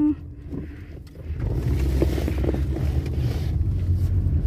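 Low road and engine rumble inside a moving car's cabin, growing louder about a second and a half in.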